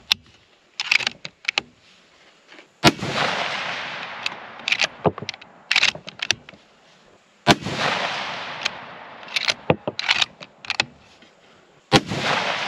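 Three rifle shots from a Mossberg Patriot bolt-action in 6.5 Creedmoor, about four and a half seconds apart. Each shot is followed by a long echo that fades over several seconds. Between shots come short clicks of the bolt being worked.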